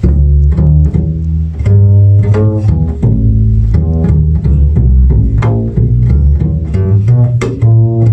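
Double bass played pizzicato: a run of low plucked notes at changing pitches, about two a second, each with a sharp attack that then rings and fades, recorded on a phone's microphone.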